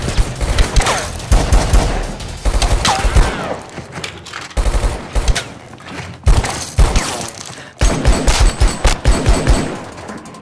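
Gunfire in a film action scene: rapid volleys of gunshots in several bursts, with short lulls between them.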